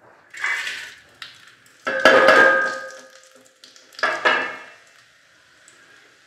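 A steel plate knocking and scraping against the rim of an aluminium pot as whole spices are tipped into hot ghee for a tempering, the metal ringing briefly after each knock. There are a few clanks: one about half a second in, the loudest about two seconds in, and another about four seconds in, over a faint steady hiss.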